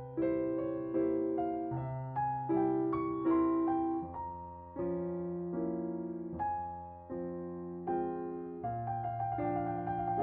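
Background piano music: a gentle, slow piece of held chords over a bass line.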